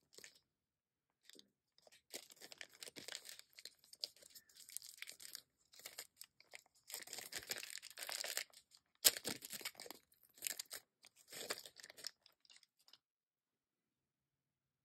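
Clear plastic sleeve crinkling and tearing in the hands as a pen is unwrapped, in irregular rustling bursts, with one sharp click about nine seconds in.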